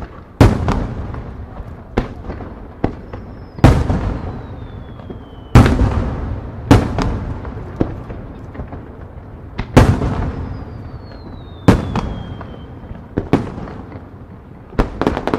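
Aerial firework shells bursting: about a dozen sharp bangs at uneven intervals, each rolling on for a second or more as it fades. Twice, a thin high whistle falls slowly in pitch.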